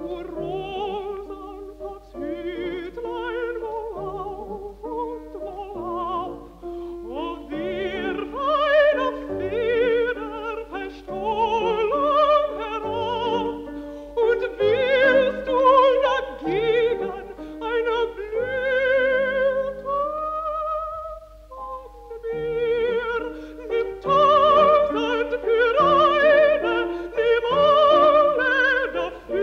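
A contralto singing a German art song with piano accompaniment, in a 1949 recording with a steady low hum beneath. Her voice has a wide vibrato on the sustained notes; about twenty seconds in she holds one long note, followed by a brief pause before voice and piano resume.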